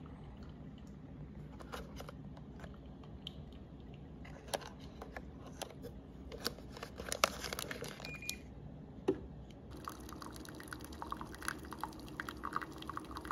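Plastic snack wrappers crinkle and click as they are handled. About ten seconds in, a UCC Drip Pod capsule coffee machine starts brewing: a steady pump hum with coffee trickling into a cup.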